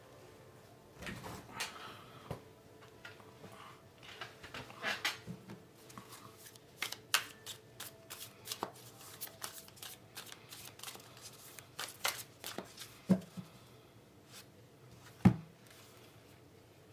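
A deck of tarot cards being shuffled by hand: a long run of quick card flicks and rustles, with a few sharper clicks near the end.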